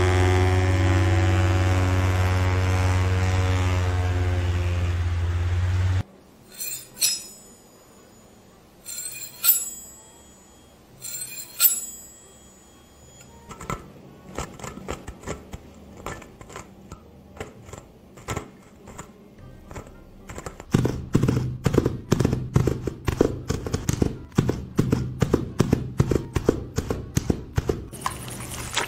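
A desk fan with a small object held against its grille makes a steady buzzing drone, used as a stand-in for a light propeller plane's engine; the drone cuts off suddenly after about six seconds. A few scattered scraping strokes follow, then fast, dense scratching and clicking to match a cat clawing tree bark, turning into heavier, regular strokes with low thumps near the end.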